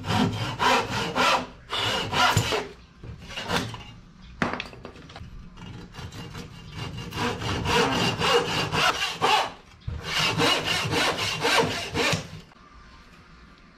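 Hand saw cutting through phenolic-faced plywood board: quick back-and-forth rasping strokes, about four a second, in several runs with short pauses, stopping shortly before the end.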